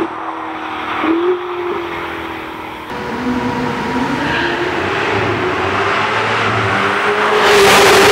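Ferrari 488 Spyder's twin-turbo V8 through a Novitec exhaust, driven hard. It fades off after one pass with a gear change about a second in, then builds again to a loud pass-by near the end.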